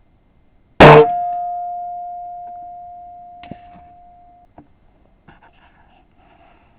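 A single shot from a Weihrauch HW97K spring-piston air rifle, a sharp crack about a second in, followed by one clear metallic ring that slowly fades away over three to four seconds. A couple of faint knocks follow.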